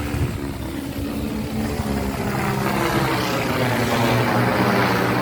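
Propellers of a crop-spraying aircraft humming steadily as it flies, growing louder from about two seconds in as it comes closer.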